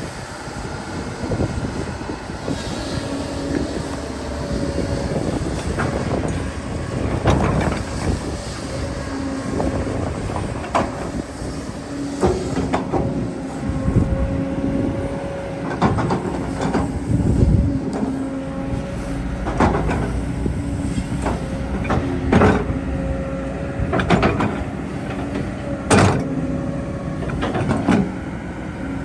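Hydraulic excavator working: its diesel engine runs steadily, a hydraulic whine rises in and out, and irregular clanks and thuds sound throughout.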